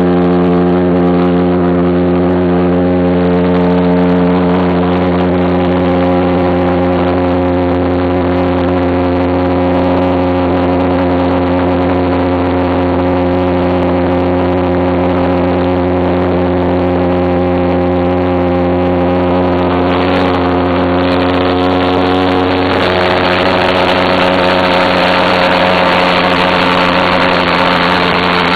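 Small homemade jet engine running steadily at idle on its first run, a loud, unbroken drone with a deep, even buzz. About 20 seconds in it turns somewhat hissier.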